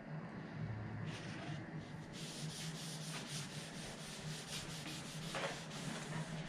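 Cloth rag rubbing over a wooden tabletop, wiping on a liquid finish in quick back-and-forth strokes of about three swipes a second, starting about a second in. A steady low hum runs underneath.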